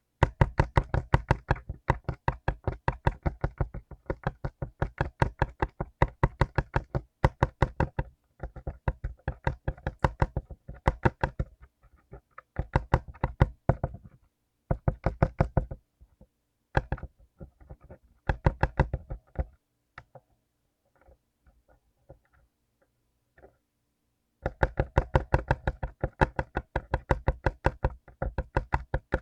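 Rapid typing on a mechanical keyboard with clicky blue switches, in dense runs of keystrokes. The typing thins to a few scattered keystrokes about two-thirds of the way through, then picks up again at full pace near the end.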